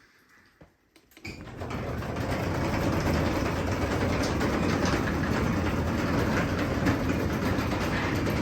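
Craftsman 3/4 hp belt-drive garage door opener starting up about a second in and running steadily as it closes the door, with a low motor hum under a continuous rattle.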